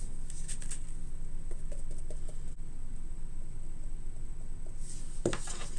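Foam brush pouncing paint onto the bottom of a box: soft, faint pats in the first couple of seconds over a steady low hum, with a short louder sound near the end.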